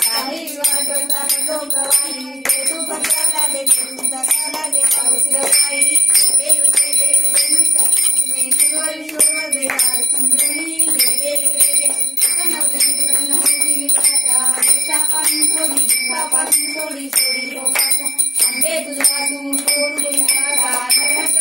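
Hindu devotional aarti hymn sung by a group of voices, with a bell ringing and a steady beat of sharp strikes.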